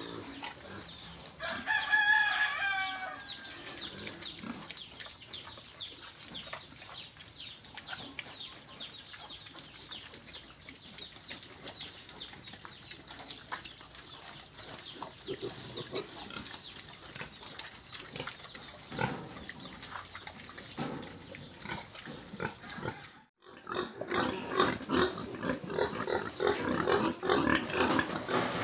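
Pigs grunting and squealing as a Large White–Landrace litter of piglets suckles at the sow, with one loud high call about two seconds in. The grunting and squealing get louder after a brief break near the end.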